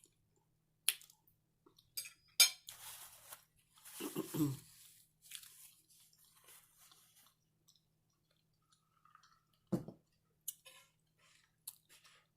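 Close-up eating sounds: chewing of pierogies and cabbage, mixed with scattered clicks and scrapes of a utensil against the plate as the last bits are gathered up, and a sharp knock about ten seconds in.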